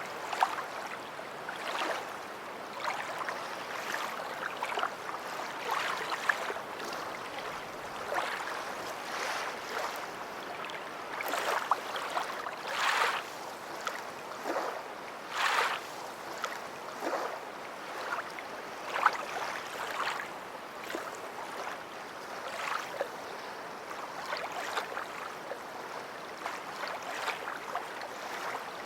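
Small waves lapping and splashing on a beach shore, a steady wash of water broken by many short, irregular splashes.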